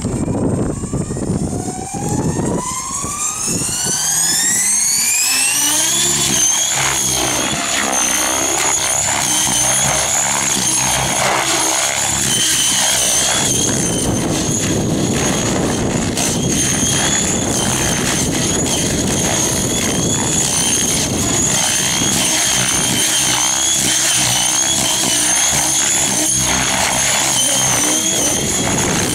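Avant Aurora 90 electric radio-control helicopter spooling up: its motor whine climbs steadily in pitch over the first several seconds. It then holds a high, loud whine with rotor-blade whoosh, the pitch wavering as the helicopter throws itself through hard aerobatics.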